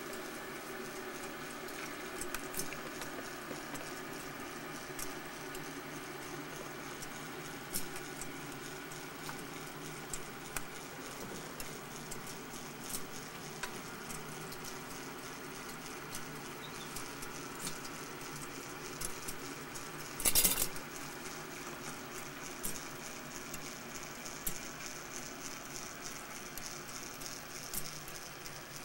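Faint, irregular small clicks and light metallic rattles from the moving parts of a brass wire-frame Kinetico kinetic clock over a steady low hum, with one louder rattle about twenty seconds in.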